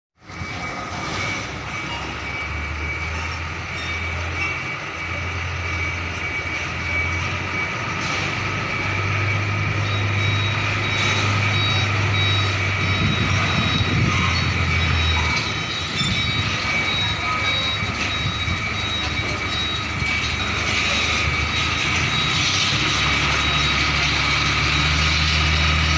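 Heavy diesel container truck running at low speed as it manoeuvres, its low engine drone rising and falling, with a high-pitched warning beeper sounding over it.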